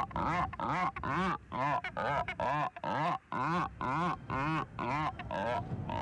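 Wandering albatrosses calling in a pair courtship display at the nest: a fast series of short calls, each rising and falling in pitch, about three a second, dying away just before the end.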